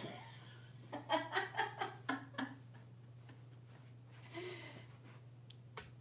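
A short run of laughter, about six quick syllables, starting about a second in; a brief breathy sound follows about four seconds in and a small click near the end, over a steady low hum.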